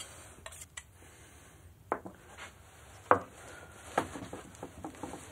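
Palette knife knocking and scraping on a paint slab while blue pigment paste is worked: three sharp knocks about a second apart, the loudest in the middle, with faint scraping between.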